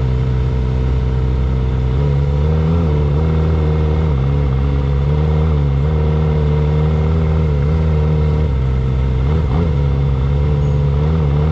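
Kawasaki Ninja ZX-25R's 250 cc inline-four engine running steadily under way. Its pitch steps up about two seconds in, then dips and rises a few times with the throttle.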